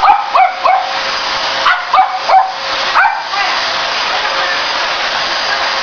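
Pugs barking sharply at a running vacuum cleaner, about six barks in quick pairs over the first three seconds. The vacuum's motor runs steadily underneath with a constant hum, and is left on its own after the barking stops.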